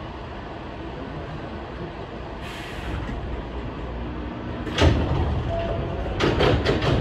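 Electric commuter train standing at a station with a steady hum. A sharp clunk comes about five seconds in, then a quick run of knocks near the end as sliding doors close.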